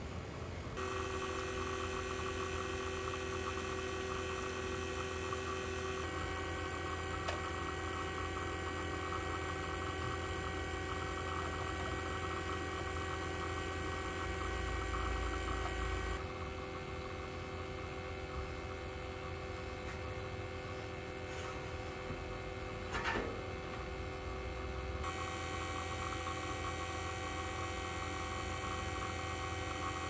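HVAC equipment running with a steady motor hum made of several even tones, its sound shifting abruptly a few times; a short knock about two-thirds of the way through.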